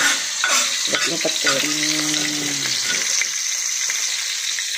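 Red chilli spice paste sizzling steadily in hot oil in a metal wok, with a few sharp clicks of a spatula against the pan in the first second and a half.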